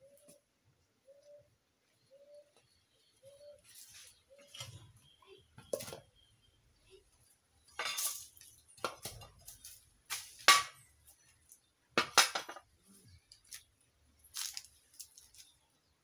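Several sharp clattering knocks of hard objects being handled, the loudest about ten and twelve seconds in. For the first four seconds a short whistled note repeats about once a second.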